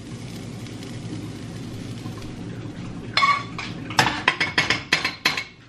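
Metal spoon scraping corned beef out of a non-stick frying pan and tapping it onto a ceramic bowl: a quick run of short scrapes and clinks starting about halfway in, over a steady low background noise.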